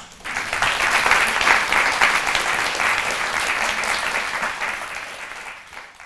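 Audience applauding, swelling quickly to full strength and then gradually fading.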